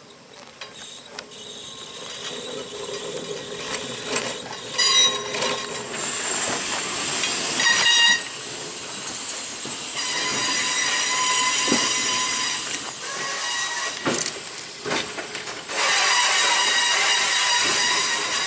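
Electric interurban train rolling past close by: two short horn blasts about three seconds apart, then steady high-pitched squealing and a louder rush of noise as the cars go by.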